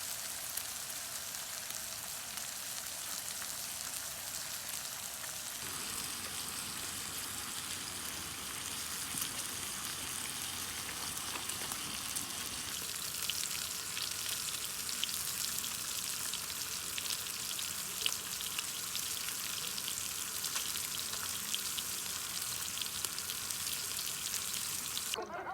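Pork belly sizzling and spitting as it fries on a hot grill: a steady hiss with many small pops and crackles.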